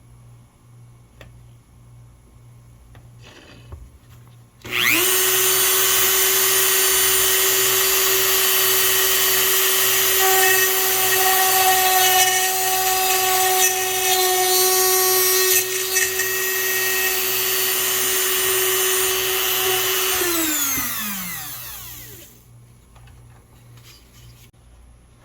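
Dremel rotary tool in a drill press stand switching on about five seconds in and running with a steady high whine while drilling pilot holes in wood. Near the end it switches off, its pitch falling as it winds down.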